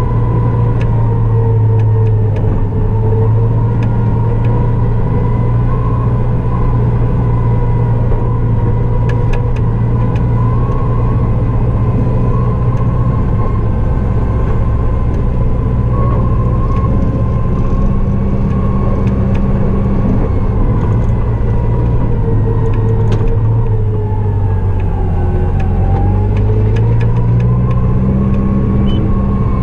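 Snow-clearing vehicle's engine running steadily under load. Late on, the engine speed sags briefly, then picks up to a higher pitch just before the end.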